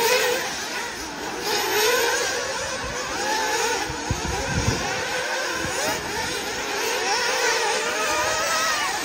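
Nitro RC buggy engines buzzing at high pitch, revving up and down in overlapping waves as several buggies race. A couple of short thumps sound about four and a half seconds in.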